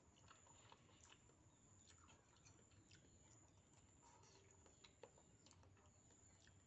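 Very faint eating sounds: chewing and slurping noodles, with small scattered clicks of a fork against the bowl.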